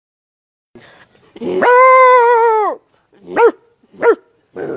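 A boy's voice imitating a big dog barking: one long drawn-out bark about a second and a half in, then two short barks, with another long bark starting near the end.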